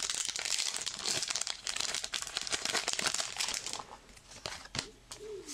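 Foil booster-pack wrapper crinkling and tearing as it is opened and handled. The dense crinkling dies down about four seconds in, leaving a few light rustles.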